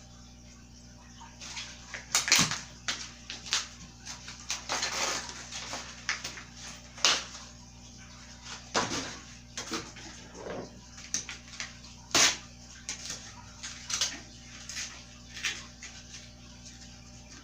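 Bike parts and packaging being handled during assembly: irregular sharp clicks and knocks mixed with rustling, swishing scrapes, the loudest knocks about two, seven and twelve seconds in.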